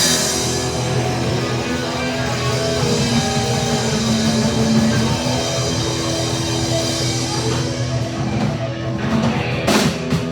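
Live rock band playing an instrumental passage on electric guitar, bass and drum kit, with a few loud drum and cymbal hits near the end.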